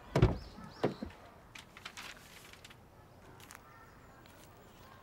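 A heavy thump, then two sharper knocks about a second in, followed by a few light clicks and a brief rustle, with faint bird chirps in the background.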